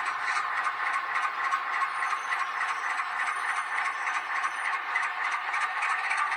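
H0-scale model train running on track, pushed by a model Renfe Alco 313 locomotive: a steady mechanical hum from the motor and gears, with a rapid, even rattle of wheels clicking over the rails.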